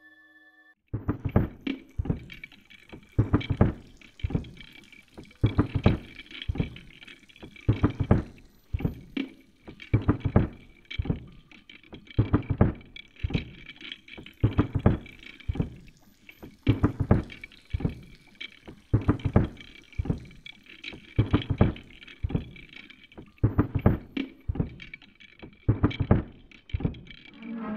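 A long, uneven string of percussive knocks, about one to two a second, over a faint steady high tone, starting about a second in.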